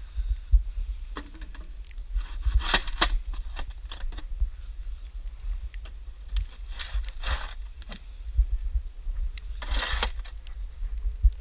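Wind buffeting the microphone in a snowstorm, with three scraping crunches in snow a few seconds apart.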